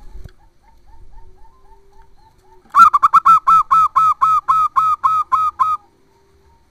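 Zebra dove (perkutut) singing: a few soft, short notes, then nearly three seconds in a loud, rapid series of about fourteen staccato coos, four to five a second, lasting about three seconds.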